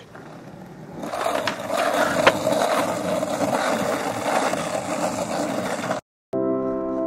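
Skateboard wheels rolling on pavement, a steady rolling noise with a couple of sharp clicks, that cuts off suddenly about six seconds in. Piano music starts right after.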